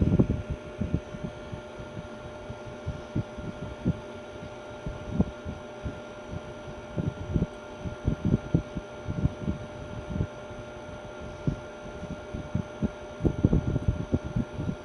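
Ceiling fan running with a steady hum, over irregular low thumps that bunch together near the end.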